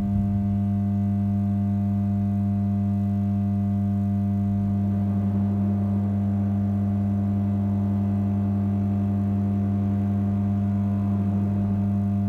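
Steady low droning hum of several held pitches, like an organ chord, with a fainter wavering tone swelling about halfway through and again near the end; a so-called strange sound that the uploader thinks came from the ground.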